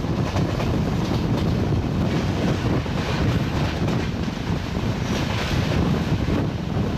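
LHB coaches of a superfast express train rushing past at speed: a steady rush of wheel and air noise, with wind buffeting the microphone.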